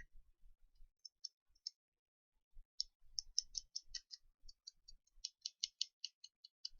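Faint, quick small clicks from metal tweezers being cleaned. A few scattered clicks come first, then a steady run of several a second from about three seconds in.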